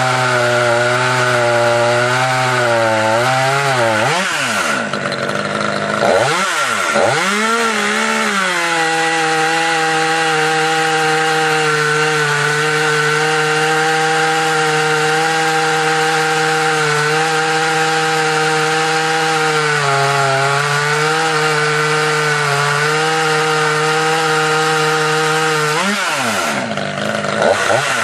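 Husqvarna T540 top-handle chainsaw running at high speed, cutting into a log. Its speed drops sharply and picks up again a few times about four to eight seconds in, holds steady through the long middle stretch, then dips again near the end.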